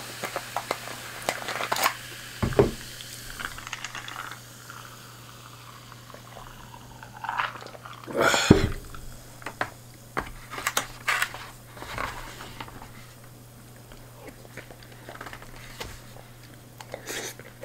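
Eating sounds close to the microphone: chewing with small clicks of a spoon and plastic bento container, a knock on the table about two and a half seconds in, and a louder sip from a glass of iced drink around eight seconds in. A low steady hum runs underneath.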